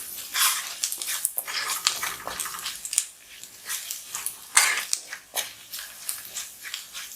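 Spatula stirring and scraping chilli powder and turmeric through sautéed shallots, ginger and garlic in hot coconut oil in a pan, in short irregular strokes. The masala is being kept moving so the spice powder does not burn.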